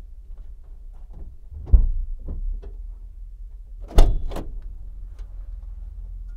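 Trunk lid of a 2001–2005 Honda Civic being shut and latched: a thump about two seconds in, then another about four seconds in followed at once by a lighter knock. The newly refitted trunk latch is being tested.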